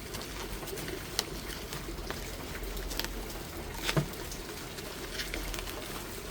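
A few scattered clicks and knocks from handling packaging and a tool during an unboxing, the loudest pair about four seconds in, over a steady background hiss.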